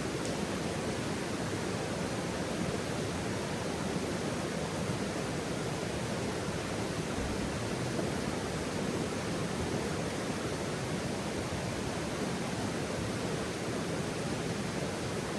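Running water rushing steadily and evenly, with no breaks or changes.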